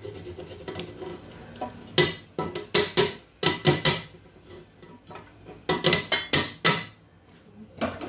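Kitchen utensil knocking and clinking against a bowl, in several quick clusters of sharp taps with short pauses between.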